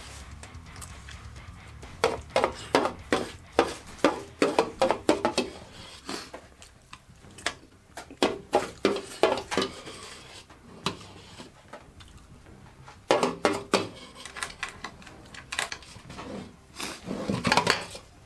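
An eating utensil scraping and clinking against a large stainless steel mixing bowl, in bursts of quick strikes with quieter pauses between.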